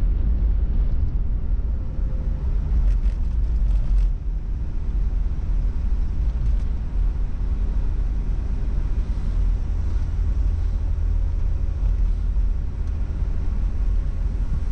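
Car driving: a steady low rumble of engine and road noise, with a few faint clicks about three to four seconds in.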